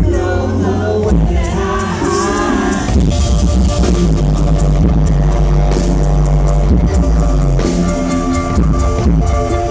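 A live rock band playing: electric guitar over a steady bass line and a drum kit.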